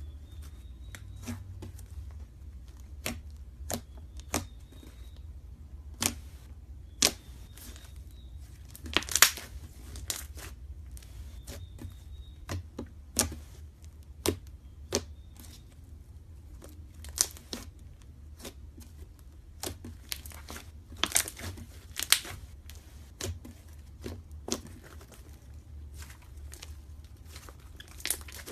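Irregular sharp crackles and clicks, like material being crinkled or torn by hand, a few a second with louder snaps here and there, over a steady low hum.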